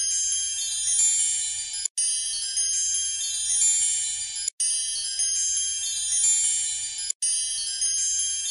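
Added music of high, shimmering chime-like tones. It cuts out for an instant about every two and a half seconds, three times in all.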